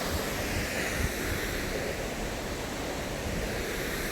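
Steady rushing roar of Miners Falls, with low rumbling buffets of wind on the microphone.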